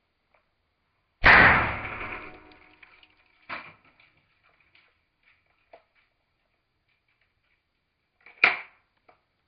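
A Bruni Colt Single Action Army blank revolver fires one loud shot about a second in, its report fading over about two seconds. Fainter metallic clicks follow, then a shorter, sharp report near the end.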